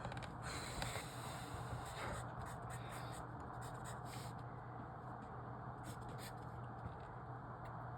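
Writing on paper: short scratchy strokes, crossing out and checking off boxes in a logic-puzzle grid, over a steady low hum.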